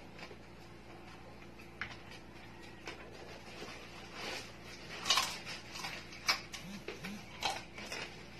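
Close-up eating sounds: chewing and crunching on crispy roasted pig-head skin and meat, with fingers picking at the food. The crunches are sparse at first and come thicker and louder in the second half.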